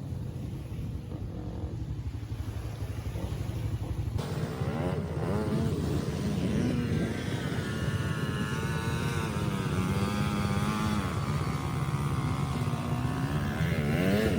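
Honda FourTrax quad's single-cylinder engine running as it is ridden, its pitch rising and falling with the throttle. The sound changes abruptly about four seconds in, then keeps varying.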